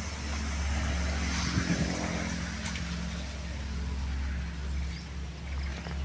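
A motor vehicle's engine running steadily, a low even hum, with a steady hiss of wind and road noise over it.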